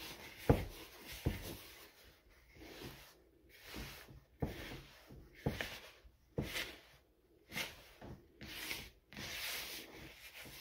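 Hands rubbing and squeezing damp bath bomb powder in a plastic bowl, blending in the oils: a dry, gritty scraping in strokes about once a second.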